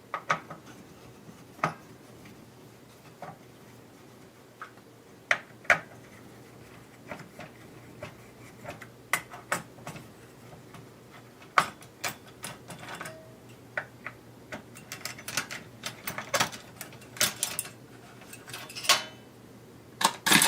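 Irregular small clicks and taps of hand tools and parts being handled while a PS4 console is taken apart, coming closer together over the last few seconds.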